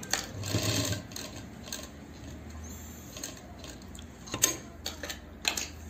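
Heavy plaid fabric rubbing and scraping as it is pushed and shifted on a sewing machine bed: a rough rasp in the first second, then a few short scrapes and clicks near the end.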